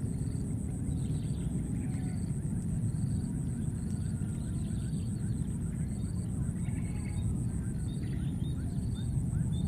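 Outdoor ambience: a steady low rumble, with a short high chirp repeating about once a second and faint bird calls.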